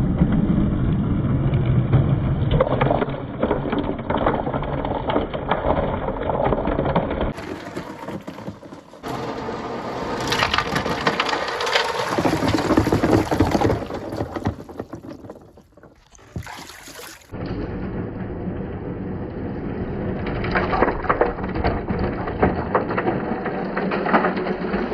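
Many glass marbles rolling and clattering through plastic rain gutters and PVC pipe in a water marble run: a dense stream of rattling clicks over a rushing noise, changing abruptly about seven and seventeen seconds in.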